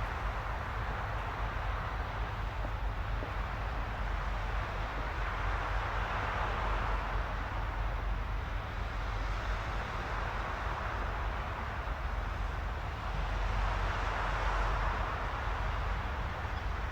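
Steady rushing noise over a deep low rumble, swelling gently and fading twice, with no distinct clicks or tones.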